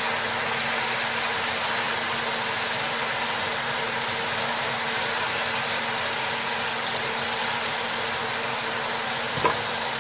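Steady hiss of vegetables frying in oil on the stove, with a low hum running underneath. A single light knock of the wooden spoon against the aluminium pot comes near the end.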